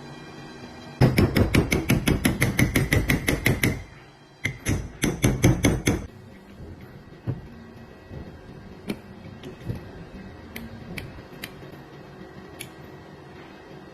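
Ingersoll Rand 285B air impact wrench hammering in two bursts of rapid, even blows, about nine a second: one of roughly three seconds, then a shorter one. A few light metallic clicks follow.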